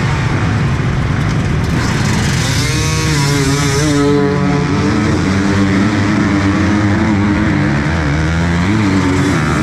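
Dirt bike engines revving on the track, the pitch rising and falling again and again as the throttle opens and closes.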